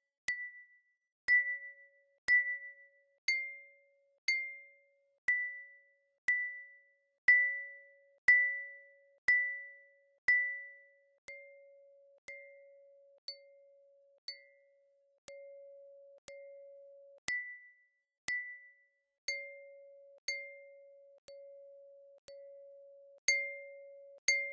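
Computer-synthesized sound of a glass wine glass being tapped about once a second, rendered from a modal sound model. Each tap is a sharp click followed by a short, high, bell-like ring. Most taps also carry a lower second tone, and the mix of tones shifts as the strike point moves down the glass.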